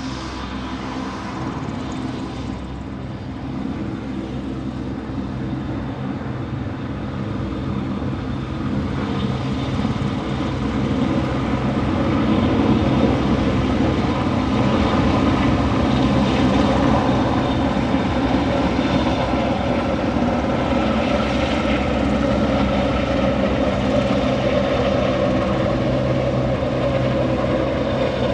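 A steady engine drone made of many fixed low tones over a noisy rush, growing louder over the first ten seconds or so and then holding.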